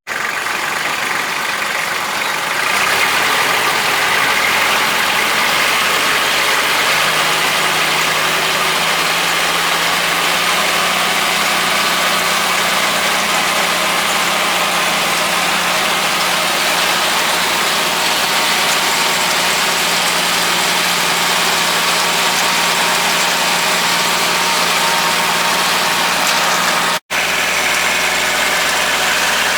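Kubota L3200 tractor's three-cylinder diesel engine running steadily, coming up over the first few seconds and then holding an even pitch. The sound cuts out for an instant near the end.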